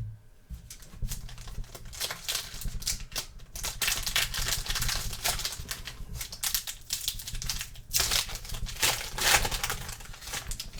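Trading cards being handled and flipped through, a dense run of rustling, sliding and clicking.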